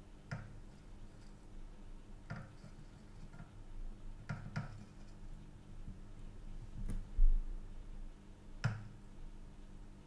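Sparse faint clicks and taps of a soldering iron tip and solder wire working at the pads of a circuit board, about six in all, with a single dull low bump a little after the middle that is the loudest sound. A faint steady low hum runs underneath.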